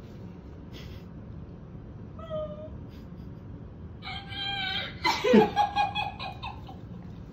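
A woman's high-pitched emotional crying, muffled by her hand over her mouth. A short whimper comes about two seconds in, then a long held squeal, then a run of sobbing cries that drop in pitch.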